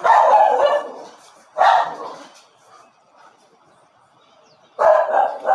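A dog barking: three loud barks, one at the start, one under two seconds in and one near the end.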